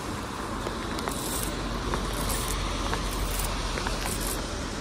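Small scattered clicks and rustles of hands working a backlash out of the line on a baitcasting reel, over a steady background hiss. The tangle comes from loose line and a reel brake weakened by getting wet.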